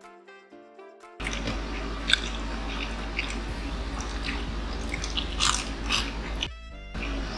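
Background music, with close-miked chewing, biting and wet mouth smacks from eating fried street-food skewers starting about a second in. The music plays alone for a moment near the end.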